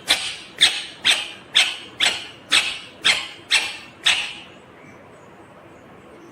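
Indian ringneck parakeet giving a rapid series of harsh, high-pitched screeching calls, about two a second, nine in a row, then stopping about four and a half seconds in.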